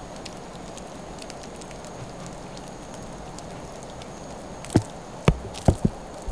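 Thick oil-based paint dripping and splattering onto a hard surface: faint scattered ticks, then four sharp splats close together about five seconds in.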